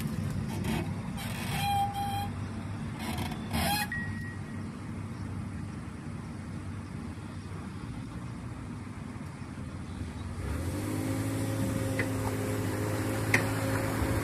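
Low engine drone as the boat comes off its trailer, with a few short scrapes in the first four seconds, one with a brief squeal. About ten seconds in, a steadier engine hum sets in as twin outboards move the aluminium landing craft away from the ramp.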